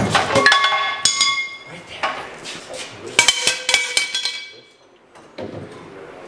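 Steel parts of a mini truck's rear suspension clanking and clinking as the axle is pushed into place on the leaf springs. There are several sharp metal strikes that each ring briefly, the strongest about a second in and about three seconds in.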